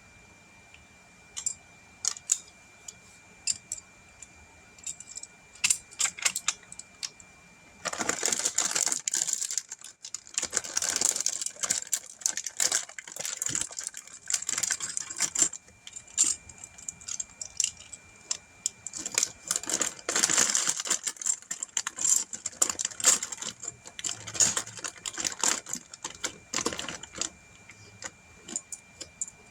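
Loose plastic Lego pieces rattling and clicking as they are sifted through by hand. There are scattered single clicks at first, then from about eight seconds in a near-continuous rattle that comes in bursts.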